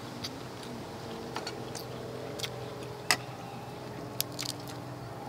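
People eating with their mouths and hands: scattered lip-smacking and chewing clicks, the sharpest a little after three seconds, over a steady low hum.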